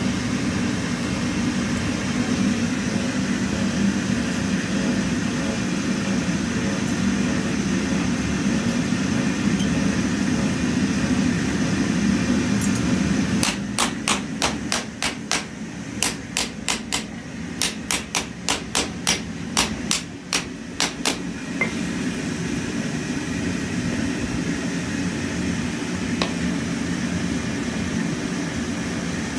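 A small hammer tapping on a metal casting pattern: a run of about two dozen light, quick taps, two to three a second, lasting about eight seconds midway through. A steady low hum runs under it.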